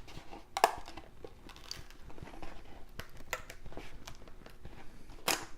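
Hands working a finished 3D print loose from the Ender 3 printer's build plate: scattered light clicks and crackles, with a couple of sharper clicks about half a second in and near the end.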